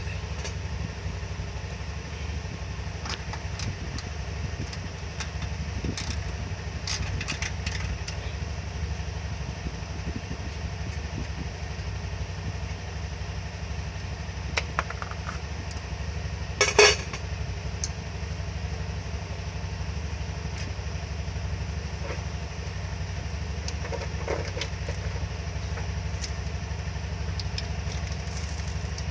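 Small engine idling steadily, with a few short metallic clinks over it, the loudest a quick double clink about two-thirds of the way through.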